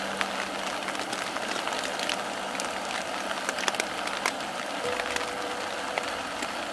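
Steady rain, with scattered drops ticking on the nylon tent fly.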